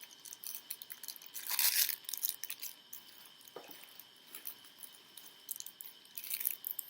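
Handling noise from switch plate covers and their packaging: scattered light clicks and short crinkly rustles, the loudest rustle about one and a half seconds in and another near the end.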